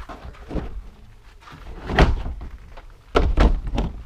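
Plastic resin doors of a Rubbermaid Big Max storage shed being swung and shut: a hollow thud about two seconds in, then a quick run of knocks and rattles near the end.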